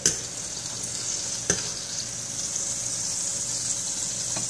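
Hot butter and oil sizzling steadily in a frying pan as a pan-seared mahi-mahi fillet is lifted out. Two sharp clicks of the fork and spatula against the pan, one at the start and one about a second and a half in.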